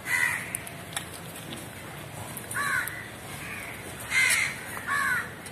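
Crows cawing: several separate harsh calls, the loudest about four seconds in.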